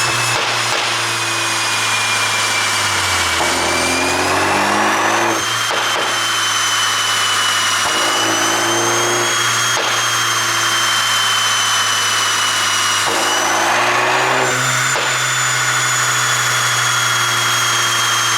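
BMW 530i's turbocharged 2.0-litre four-cylinder engine with a pop-and-bang exhaust tune, running and revved up and back down twice, with a few sharp exhaust pops.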